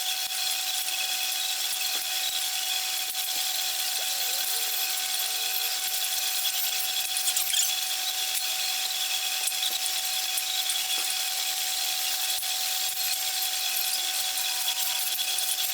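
A machine running with a steady whine over a high hiss, unbroken throughout, as while the snowcat's track is being taken off.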